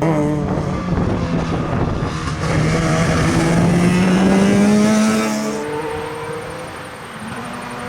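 Mazda RX-7 rotary engine under hard acceleration, its note climbing steadily for several seconds; about five and a half seconds in the note drops and the sound fades as the car moves away.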